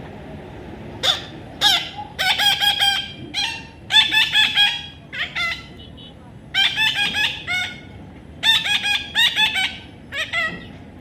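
Parrot calling in bouts of rapid, short, shrill squawks, each bout lasting about half a second to a second, with brief pauses between.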